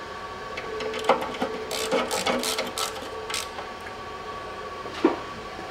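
Hand tool fastening the bolts of a new automatic-transmission filter on an Aisin 09D valve body: a rapid run of clicks in the middle, with a single click before it and a knock near the end, over a faint steady hum.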